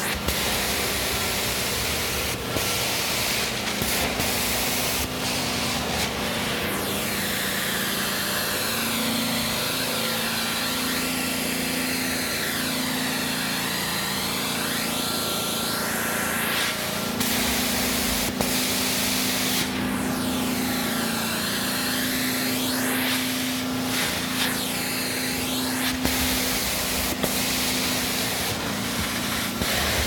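Carpet-cleaning extractor running: steady vacuum suction and water spray through the floor wand as it is pulled across the carpet, a constant motor hum under a hiss that sweeps up and down in pitch with each stroke.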